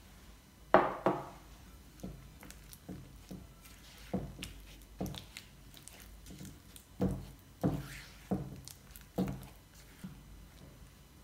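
Spatula knocking and scraping against a ceramic bowl while egg yolk is mixed into soft creamed butter, with wet squishing of the mixture. The knocks come irregularly, about once a second; the two loudest come close together about a second in.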